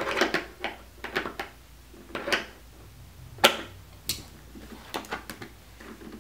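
Irregular clicks and knocks of pliers on a nut and bolt and of handled plastic panels while a load-bearing hinge bolt is tightened. A sharp click about three and a half seconds in is the loudest.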